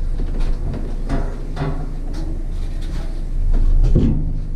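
Knocks and scraping from a heavy cast iron bathtub being levered and shifted into place with a wooden board, with a louder low rumble about four seconds in as the tub moves.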